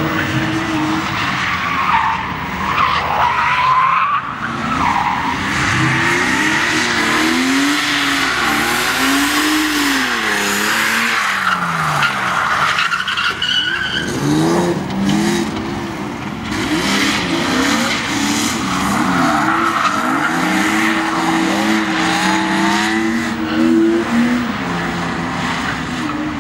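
Drift cars sliding at full throttle: engines revving up and down as the throttle is worked through the slides, with tyre squeal and skidding on the tarmac.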